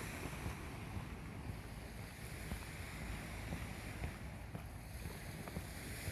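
Steady wind rumbling on the microphone over the wash of lake waves along the shore.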